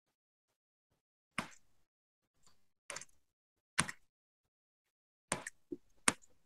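Computer keyboard keystrokes: scattered sharp clicks at irregular intervals, with silence between them.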